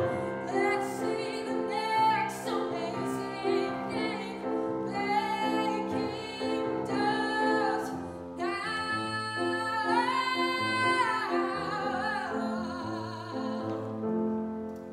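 Solo female voice singing a musical-theatre ballad with grand piano accompaniment, the phrases closing on a long held note near the end.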